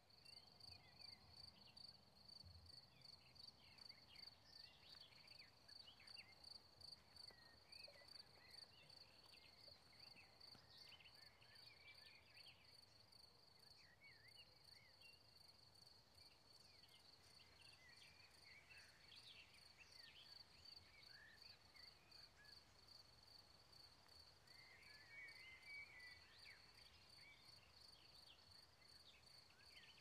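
Faint evening insect chorus: a steady, rapidly pulsing high cricket trill, with scattered short chirping calls throughout.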